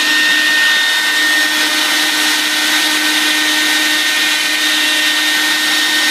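CNC router spindle cutting lettering into the rim of a turned wooden bowl, a steady high-pitched whine over a hiss, with the dust extraction running.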